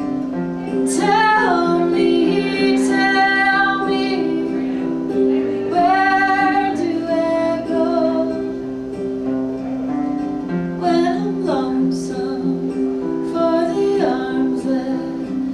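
A woman singing a folk song live, accompanied by strummed acoustic guitar and a second guitar played flat across the lap.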